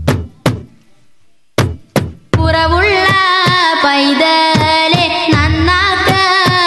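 A few sharp drum strikes, then about two and a half seconds in a high voice starts singing a Malayalam devotional song in a wavering, ornamented melody, with drum beats keeping time under it.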